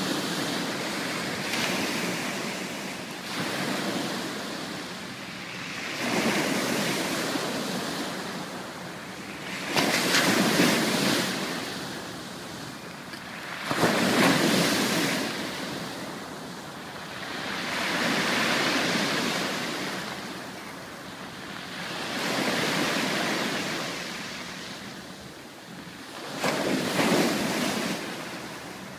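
Pacific Ocean waves breaking and washing up on a beach, the surf swelling and fading every four seconds or so, with a few sharper, louder breakers about ten, fourteen and twenty-seven seconds in.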